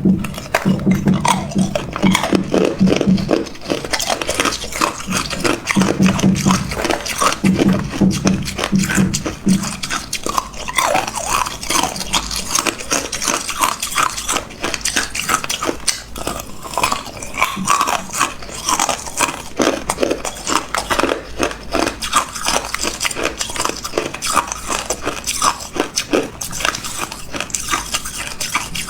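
Hard ice being bitten and chewed close to the microphone: a continuous run of sharp crunches and cracks.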